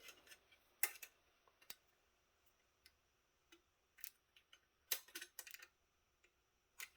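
Faint, scattered plastic clicks and taps as the snap-on plastic faceplate of a Sony MFP920 3.5-inch floppy drive is pried at and worked loose, with a small cluster of clicks about five seconds in.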